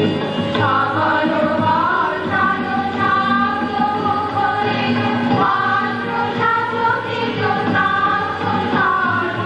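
A group of voices singing a melody together in unison, with musical accompaniment under them.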